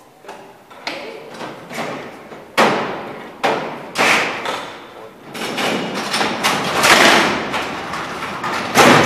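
Barred steel cell doors being moved by a remote lever-operated mechanism: a string of heavy metal clanks and rattles, a longer rumbling run in the middle, and the loudest clang near the end, all echoing in the cellhouse.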